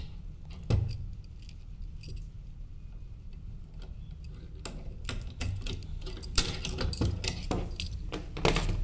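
A key turning in a padlock while the other keys on its ring jangle: scattered metal clicks and rattles, with a single knock about a second in. The clicks come thicker and louder in the last few seconds as the lock is worked open.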